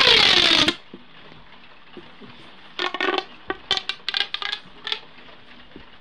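Green plastic pop tube (corrugated fidget tube) pulled open with a loud whirring rush whose pitch falls steeply, lasting under a second. About three seconds in comes a quick run of short clicks with a ringing edge, like the tube's ridges popping.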